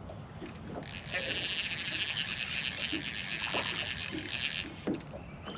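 Spinning reel buzzing for about four seconds with a fish on the line, starting about a second in and cutting off near the end.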